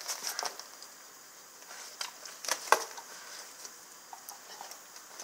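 Rottweiler gnawing a raw lamb shank: irregular chewing and crunching of teeth on meat and bone, loudest in a pair of sharp cracks about two and a half seconds in.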